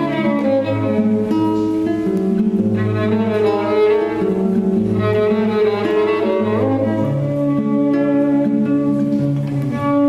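Violin and acoustic guitar playing together: the bowed violin holds long notes over fingerpicked guitar.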